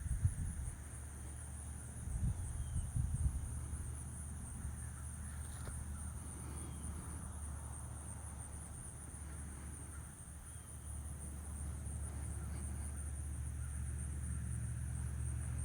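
Insects chirring in a steady, high-pitched, pulsing drone, over a low rumble that swells in gusts at the start and again about two to three seconds in.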